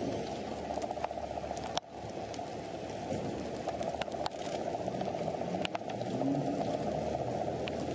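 Heavy tractor truck hauling a subway car on a low trailer along a rain-wet road: a steady low rumble of engine and tyres with the hiss of wet tarmac, and a few sharp clicks.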